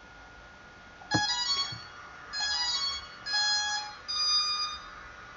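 Walkera Vitus 320 quadcopter powering up: a click about a second in, then a run of four short multi-note electronic beeps about a second apart. This is its beeping while it binds to the radio, which stops once the bind is done.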